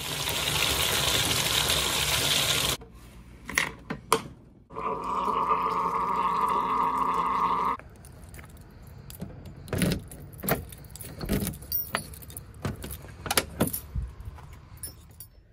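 Two loud stretches of steady rushing noise, each lasting a few seconds, then keys jangling and a run of clicks and knocks as a pickup truck's door is unlocked and opened.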